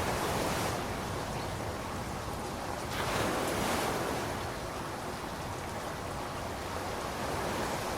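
Steady rain falling, swelling louder for about a second around three seconds in.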